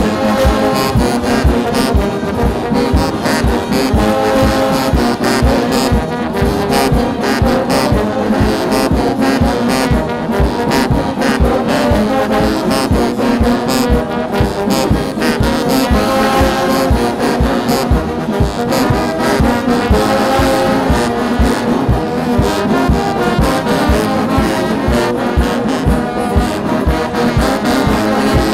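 Brass band music, with trombones and trumpets playing over a steady drum beat.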